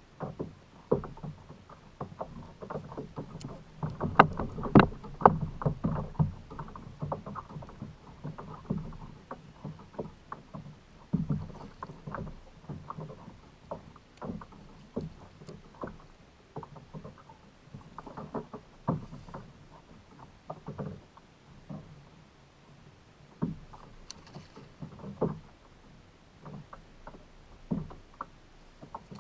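Water lapping and slapping against a kayak's hull, with irregular small knocks and splashes coming in uneven clusters.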